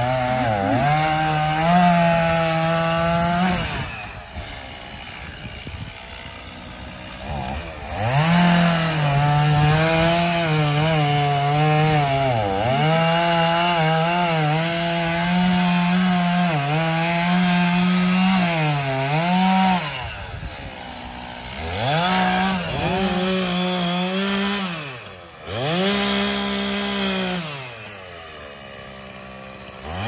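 Two-stroke chainsaw bucking felled tree limbs: the engine revs up and holds at full throttle through each cut, then drops back to a low idle between cuts, several times over, its pitch dipping briefly now and then.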